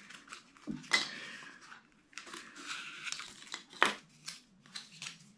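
Pieces of foam board handled and fitted against each other: rubbing, creaking and light tapping, with two sharp clicks, about a second in and just before four seconds.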